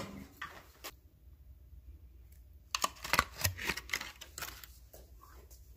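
A short run of light clicks and taps from a utensil knocking against a plate while Greek yogurt is spooned onto raw lamb chops, coming about three seconds in.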